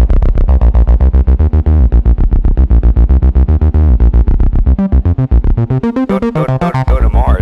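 Acid bassline from a Roland 303 Bass Line synthesizer: a fast, even run of short notes over deep bass. In the last couple of seconds the low end thins and the filter opens into a rising resonant squelch.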